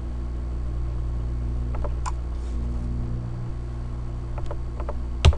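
Computer mouse clicking a few times over a steady low electrical hum, with one louder click near the end.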